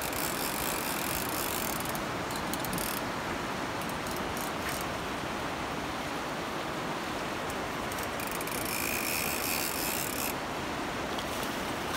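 Steady rush of river current, with light mechanical ticking in places.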